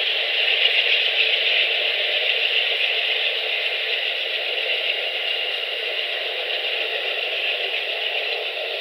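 Amtrak passenger train cars rolling past, a steady hissing rattle of wheels on rail heard through a thin-sounding webcam microphone, easing off slowly as the last car clears.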